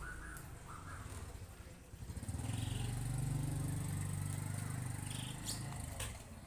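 A low engine drone, loudest for several seconds in the middle, comes in about two seconds in and eases off near the end, with a few short bird calls at the start.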